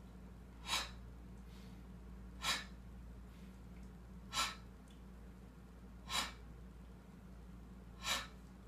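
A man's short, sharp breaths, five of them about every two seconds, one with each repetition of a seated rib-cage and chest-lifting exercise.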